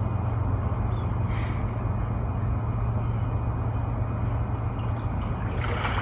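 Hot tub jets running: a steady rush of churning water over a low motor hum, with a bird chirping again and again above it. Near the end the water sloshes and splashes as someone steps into the tub.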